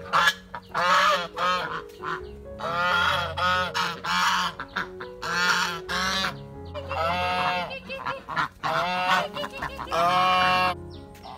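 A flock of white domestic ducks quacking loudly, in repeated bursts of harsh calls about a second long with short gaps between.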